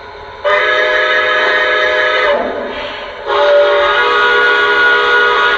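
Lionel Legacy Railsounds steam whistle of a Santa Fe 4-8-4 model locomotive, sounding two long, loud, chime-like blasts, the signal for proceeding, heard through the model's speaker.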